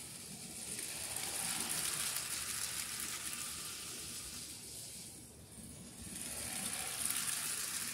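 Motorised Lego train running on plastic track, its motor whirring and wheels rattling over the track joints; it swells about a second in, fades around the middle, and swells again near the end as the train passes by on the loop.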